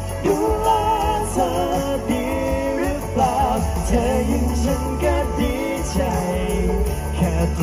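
A pop song with male voices singing a melody over a steady bass.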